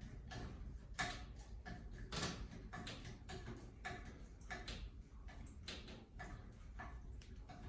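Faint, irregular light clicks and ticks, a few a second, from the old doorknob latch hardware being worked out of the door.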